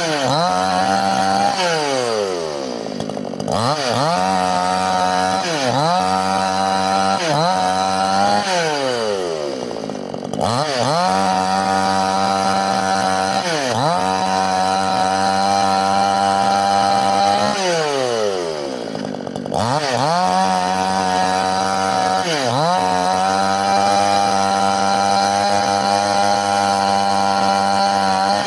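Two-stroke chainsaw cutting wood at high revs, its pitch dipping briefly every couple of seconds as the chain bites. Three times the engine falls away toward idle and then revs back up into the cut.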